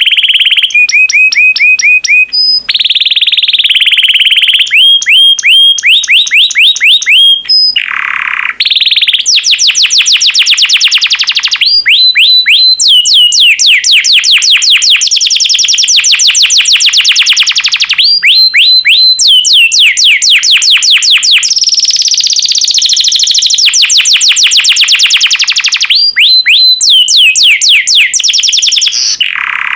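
Yellow domestic canary singing a long, loud song of rapid trills, each a fast run of repeated high notes, switching to a new trill at a different pitch every second or two with only brief breaks.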